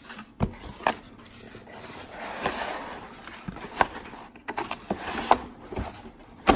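Cardboard box packaging being handled: flaps scraping and rubbing, with a handful of sharp knocks and taps and a stretch of rustling about two seconds in.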